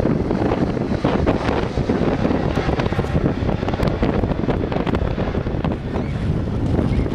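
Strong gusty wind, about force six, buffeting the microphone: a loud, uneven rumbling noise.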